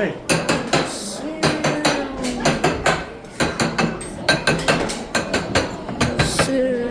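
Rapid, irregular clacking and knocking, several sharp hits a second, with high children's voices calling underneath.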